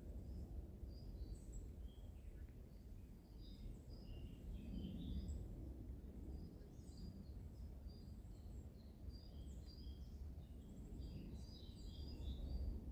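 Several songbirds chirping and twittering in short overlapping phrases, busiest in the middle and near the end, over a steady low rumble.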